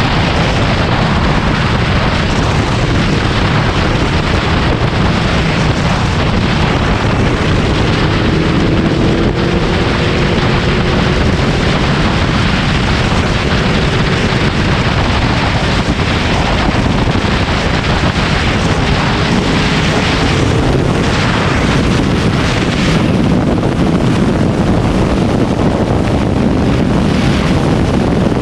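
Yamaha VMAX 1700's V4 engine running at highway speed under heavy wind noise on the microphone, a steady loud rush, with a faint engine note rising gently twice in the middle.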